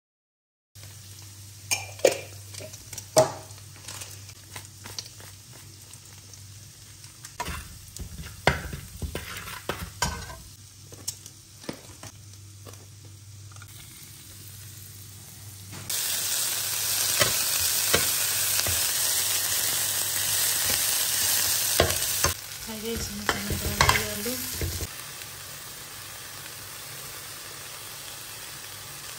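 Steel spoon clinking and scraping in a steel pan of hot oil. Midway, food sizzles loudly in hot oil for about six seconds. More scraping follows, then a quieter sizzle.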